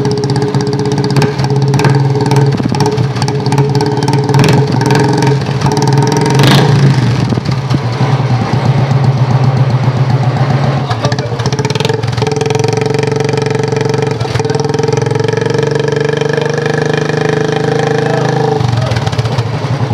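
Royal Enfield Classic 350's single-cylinder engine running through a newly fitted barrel exhaust, mixed with background music.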